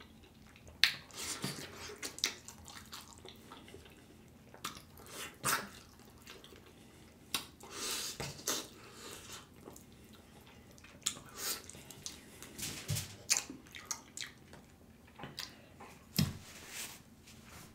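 Close-miked wet eating sounds as stewed oxtail is eaten off the bone with the fingers: irregular lip smacks, sucking and chewing clicks, sometimes several in quick succession.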